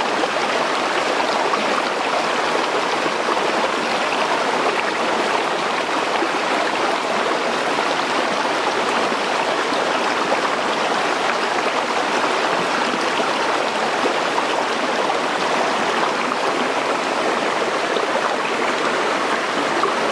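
Steady rush of a shallow stream running over rocks.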